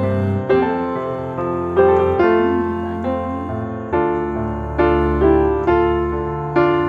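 Background piano music: a slow melody of chords and single notes, each struck and fading.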